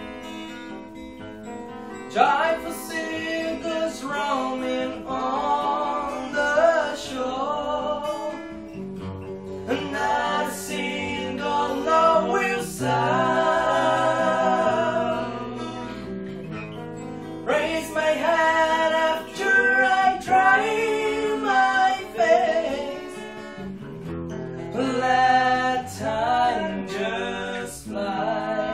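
Two acoustic guitars strummed and picked in accompaniment while young male voices sing a song together.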